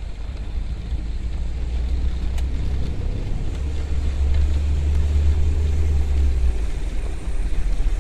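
Heavy rain and wind against a car, heard from inside the cabin: a steady rushing noise with a deep rumble that grows louder for a few seconds midway.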